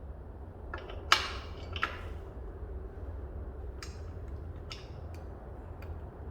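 A few sharp clicks and knocks of objects being handled, the loudest about a second in and a second one just after, then lighter ticks spaced irregularly, over a steady low hum.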